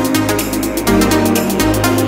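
Electronic dance music with a steady beat and heavy bass.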